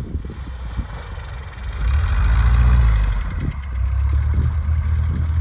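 Cessna 170 light aircraft's piston engine and propeller running at high power on a takeoff roll, growing louder about two seconds in as the plane comes close.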